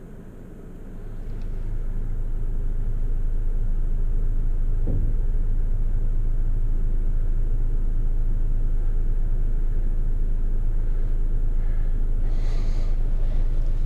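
Toyota FJ Cruiser's 4.0-litre V6 engine running, heard from inside the cabin. Its low drone grows louder over about the first two seconds, then holds steady.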